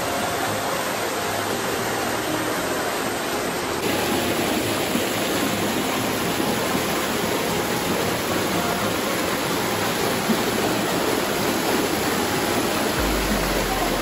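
Waterfall: fast white water rushing down over rocks close to the microphone, a dense steady rush that gets a little louder after a cut about four seconds in.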